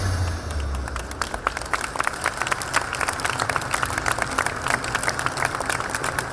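Audience applauding, many hands clapping steadily; the tail of loud show music fades out in the first half second.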